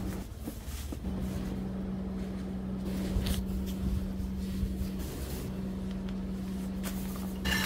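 A steady low hum of a running motor, with brief rustles and clicks as tent fabric and camping bags are handled; the loudest rustle and clicks come near the end.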